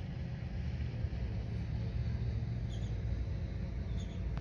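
Steady low outdoor rumble by the water, with a few faint, short, high bird chirps about three seconds in and again near the end.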